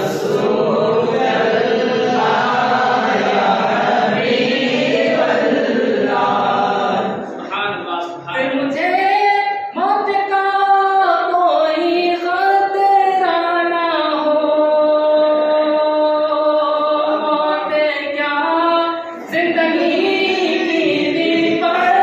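Unaccompanied naat, devotional Urdu poetry, sung by a group of male voices together, then from about seven seconds in by a single voice in long held lines, with the group joining in again near the end.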